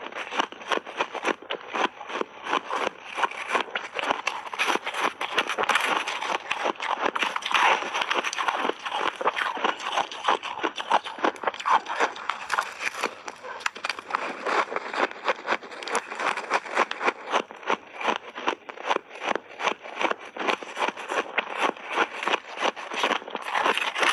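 Close-miked crunching of shaved ice with berries being chewed in big mouthfuls: a dense, steady run of crisp crackles, several a second.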